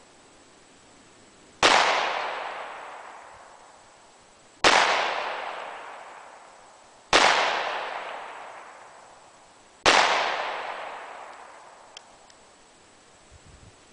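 .38 Special handgun firing four single shots a few seconds apart, each a sharp crack that echoes away over two to three seconds.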